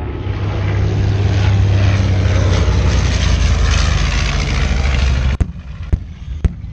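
Propeller airplane flying low past, its engine a loud steady drone that swells and then cuts off abruptly about five seconds in. Several short sharp bangs follow from airshow pyrotechnic explosions.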